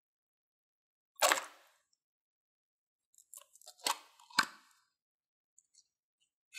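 Handling of a small rectangular plastic slime tub: one short, loud scraping noise about a second in, then a few light plastic clicks and two sharper snaps about half a second apart as the snap-on lid is pried off.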